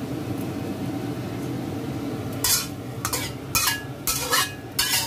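A low steady hum, then from about halfway in, five quick scraping strokes of a metal spatula stirring in a wok.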